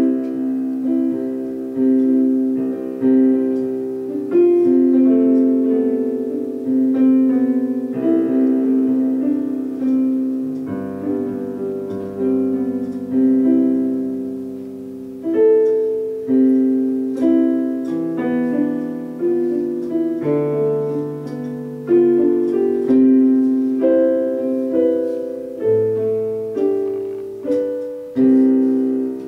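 Slow solo piano music: held chords and melody notes, each struck and left to fade before the next.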